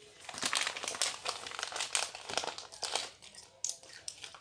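A plastic candy bag crinkling and crackling as it is handled. The crackles are dense at first and thin out over the last second or so.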